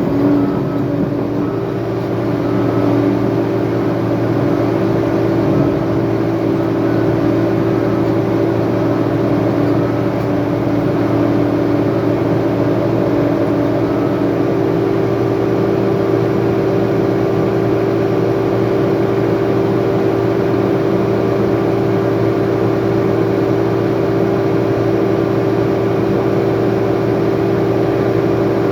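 Heavy diesel engine of an earthmoving machine running steadily under load, with a constant pitched drone.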